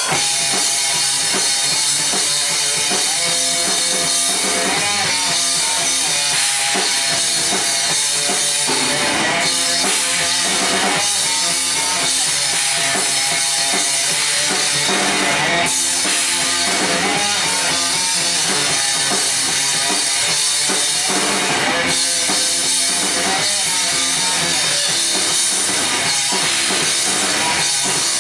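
Live rock band playing loudly: electric guitar, bass guitar and a full drum kit.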